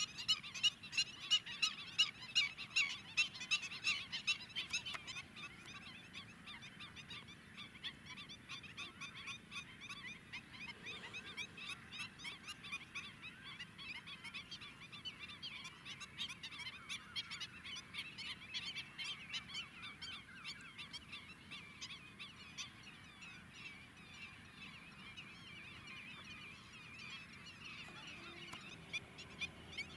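A flock of greater flamingos calling, many honking calls overlapping in a continuous chorus, loudest in the first few seconds and then settling to a steadier chatter.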